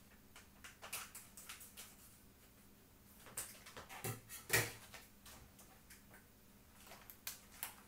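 Scattered light clicks and knocks of seasoning containers and lids being handled in a kitchen, the loudest knock a little past halfway.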